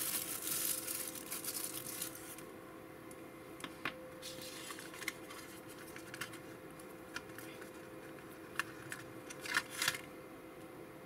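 Rustling for the first two seconds, then scattered light clicks and taps of Sakura Cray-Pas oil pastel sticks being handled in their plastic tray and set down on the table, with a quick cluster of clicks near the end.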